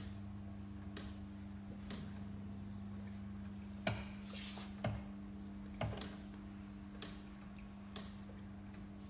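Regular mechanical ticking about once a second over a steady electrical hum, with three louder clicks and a short hiss near the middle.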